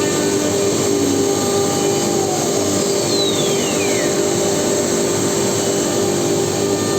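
CNC router's vacuum hold-down pump running steadily under the MDF panel being milled, with a faint whine falling in pitch between about two and four seconds in.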